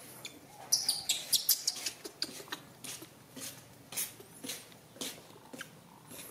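Young macaque monkey giving short, shrill squeaks: a quick run of them about a second in, then single squeaks every half second or so.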